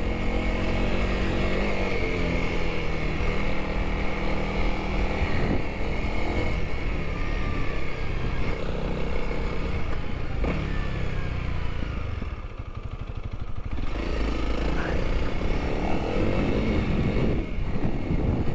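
Honda CRF300L's single-cylinder engine pulling the bike along a dirt trail, its pitch rising and falling with the throttle and the bike ridden below full throttle. It eases off briefly about two-thirds of the way through, then picks up again.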